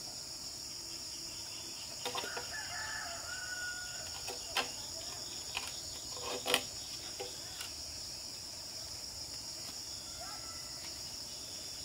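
Several sharp knocks of bricks being set and tapped into place on a fresh brick wall, the loudest about six and a half seconds in. A rooster crows a few seconds in, over steady chirring of crickets.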